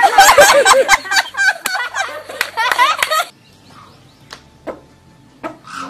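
Loud, rapid, high-pitched shrieking cries, repeated quickly for about three seconds and then cut off suddenly. A few light knocks follow in the quiet.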